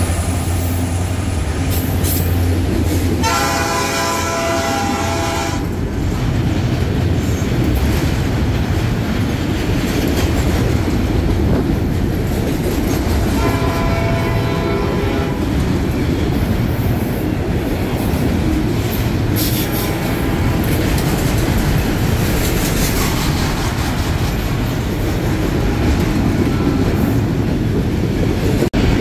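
A freight train of autorack cars rolling past close by, with a steady, loud rumble of wheels on rail and clickety-clack over the joints. The locomotive's engine is heard strongly only in the first few seconds. Three brief high-pitched ringing tones sound over the rumble: the first about three seconds in, another around fourteen seconds, and a short one near twenty seconds.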